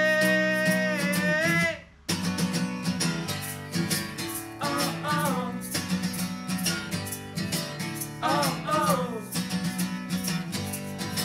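Live band playing an instrumental passage with guitar. A long held note ends and the band cuts out almost completely for a moment about two seconds in, then comes straight back in with a steady beat and recurring falling melodic phrases.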